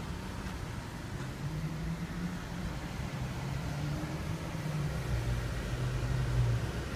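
A vehicle engine's low hum over a steady rumble, its pitch stepping slightly lower and growing a little louder toward the end.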